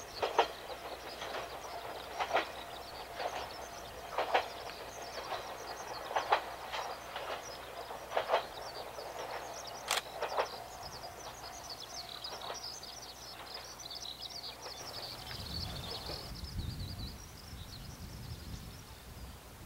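Yuri Kogen Railway YR-3000 series diesel railcar moving away over jointed track, its wheels clacking on the rail joints about once a second, sometimes in pairs, the clacks fading and dying out after about two-thirds of the way. Birds chirp throughout, and a brief low rumble comes near the end.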